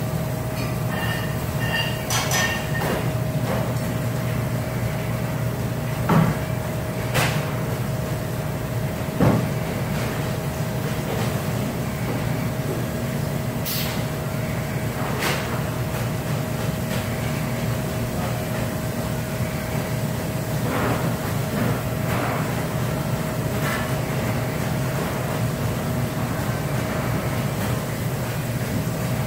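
Steady mechanical hum with one constant high whine, like kitchen machinery or ventilation, broken by a few scattered sharp knocks and clicks.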